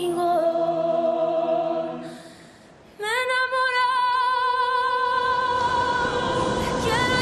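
Vocal music: long, sustained sung notes. A held note fades out about two seconds in, and after a short lull a higher note slides up and is held with a wavering vibrato.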